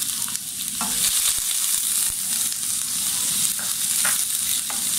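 Chopped onions sizzling in hot oil in a wok while a wooden spatula stirs them, with a few short scrapes and taps of the spatula against the pan.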